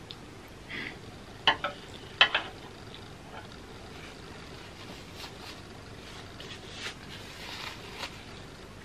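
Close-up eating sounds: a last mouthful of noodles being chewed. Two quick pairs of sharp clicks come in the first few seconds as wooden chopsticks are laid on the metal sheet pan. Soft chewing follows, and a napkin rubs across the mouth near the end.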